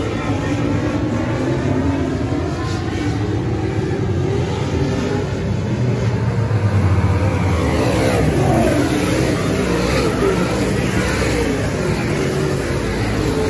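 Race car engines running hard on track, with several cars going past and their engine pitch rising and falling.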